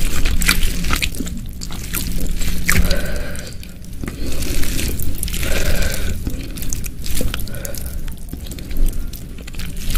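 Close-miked wet chewing and lip smacking of a person eating, with many sharp, wet mouth clicks.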